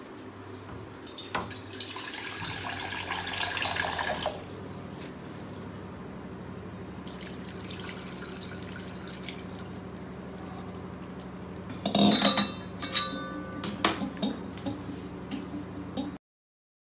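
Cold water poured from a steel vessel over boiled soya chunks in a stainless steel colander, splashing and draining through, in a louder spell and then a fainter one. Near the end come several sharp metallic clinks of steel utensils with a short ring, over a steady low hum.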